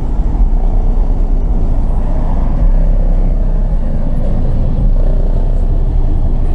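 Very deep, loud bass from a truck's car-audio subwoofer system, a heavy low rumble.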